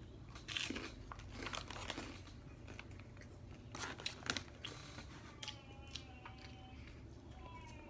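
A person biting and chewing crunchy food close to the microphone: a string of crisp crunches, with the loudest clusters about half a second in and about four seconds in.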